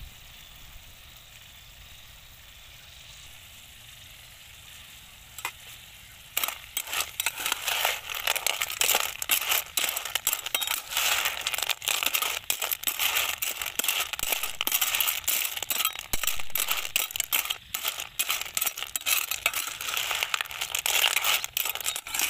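Blood clams in their shells being stirred with a metal ladle in a frying pan: a dense, uneven clatter of shells knocking against each other and the pan, starting about six seconds in. Before that there is only a faint, steady sizzle from the pan.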